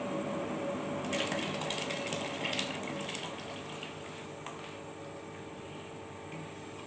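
Blended red chili poured from a plastic blender jug into a pot of boiling water: a crackly splashing patter starts about a second in and lasts about two seconds, over steady bubbling that goes on after it.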